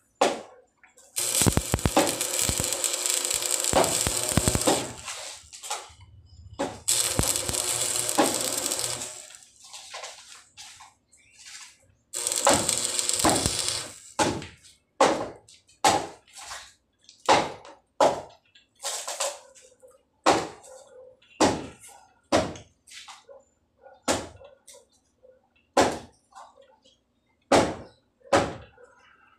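Stick (arc) welding on galvanized steel pipe: three runs of steady crackling hiss, each a few seconds long, then a series of sharp knocks about once a second.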